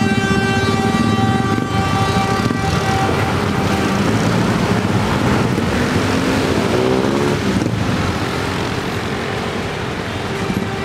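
Philippine National Railways commuter train sounding a long horn blast that stops about two and a half seconds in, then running away with a steady rumble of engine and wheels on the rails. The horn tone comes back faintly near the end.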